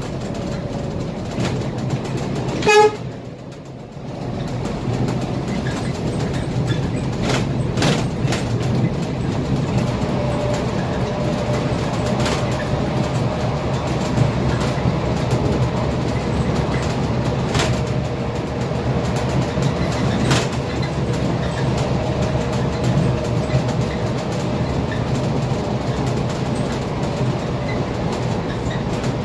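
Scania K320IA bus engine and road noise heard from the driver's cab while driving, a steady low drone with occasional knocks and rattles. A short, loud horn toot sounds about three seconds in.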